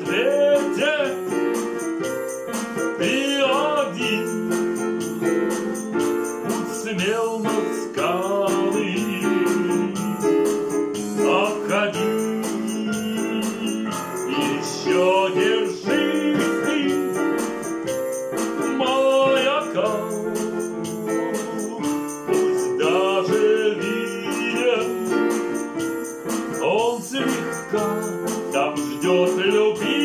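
Casio digital keyboard playing an instrumental passage of a song: held chords underneath with a wavering melody line on top.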